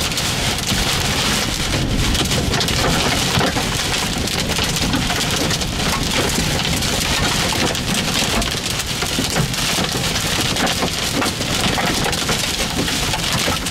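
Heavy rain pelting the windshield and body of a moving vehicle, heard from inside the cabin as a dense, steady patter.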